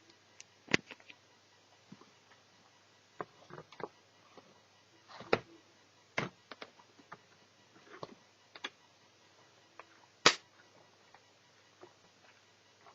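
Scattered, irregular clicks and taps of an Asus EeePC netbook and its parts being handled during a teardown, with two sharper knocks: one near the start and one about ten seconds in.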